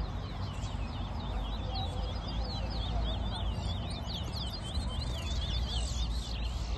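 Caged bullfinches (chestnut-bellied seed finches) singing: a dense run of quick chirps and short whistled slides, with a steady low rumble underneath.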